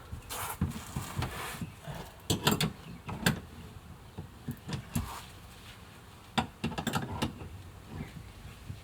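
Irregular light knocks and clicks, with a brief rustling hiss in the first second or so.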